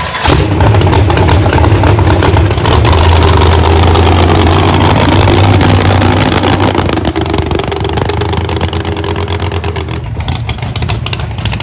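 Monster truck engine running loudly with a deep, steady note, easing off somewhat about seven seconds in.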